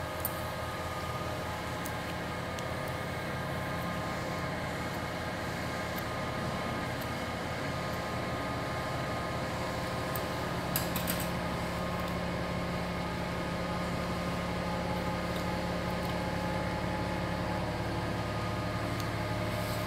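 Steady mechanical hum of operating-theatre equipment, with several steady tones over a low drone, and a few brief clicks near the start and about eleven seconds in.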